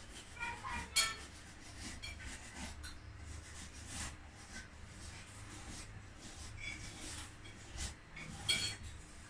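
Faint scattered clinks and taps of plates and cutlery during a meal at the table, with a sharper clink about a second in and another near the end, over a low steady hum.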